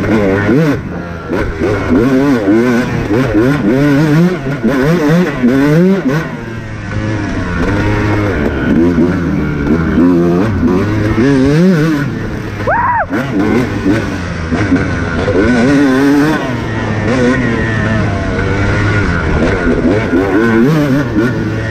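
Off-road dirt bike engine ridden hard, revving up and down over and over as the throttle is worked and gears change. About thirteen seconds in there is one brief, sharp high rev that rises and falls.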